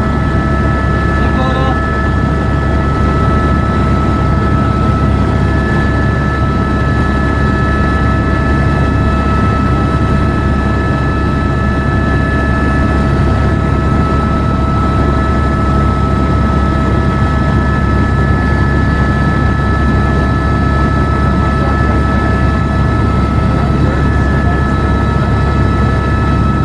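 Helicopter in flight heard from inside the cabin: a loud, steady turbine whine made of several fixed high tones over a dense low drone of the rotor and engine.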